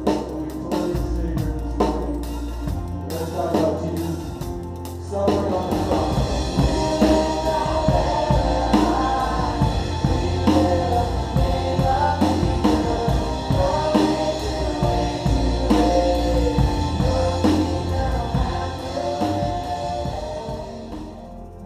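Live worship band playing a song on drum kit and electric guitars, with singing coming in about five seconds in. The music fades down near the end.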